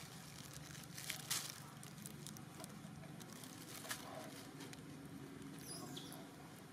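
Faint outdoor background with a few short rustles or taps, the sharpest about a second in, and a brief high squeak falling in pitch about six seconds in.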